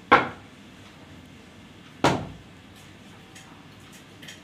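Two sharp knocks about two seconds apart, each dying away quickly, from a cricket bat striking something.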